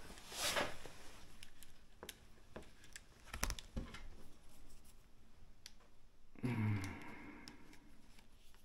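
Fiddly hand work with small screws and parts: faint clicks and taps, with a dull knock about three and a half seconds in and a short low hum from the person working near the end.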